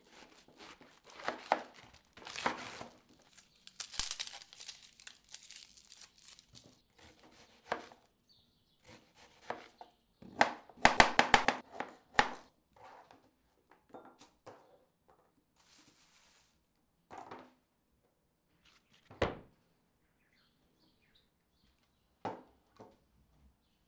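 Large kitchen knife cutting through a head of cabbage and slicing carrots on a plastic cutting board: crisp crunching and tearing of the cabbage, then a quick run of chopping strokes about ten seconds in. Scattered knocks and rustles come between, with one sharper knock a little before the end.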